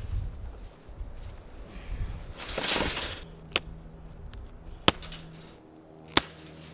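Wind rumbles on the microphone, then a square hay bale goes into a metal hay feeder with a brief rustling crunch. Cutters then snip the baling twine in three sharp clicks, a little over a second apart.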